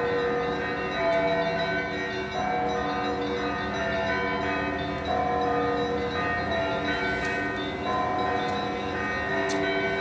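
Church bells ringing a peal: several bells struck in turn, a fresh strike every second or so, their tones hanging on and overlapping.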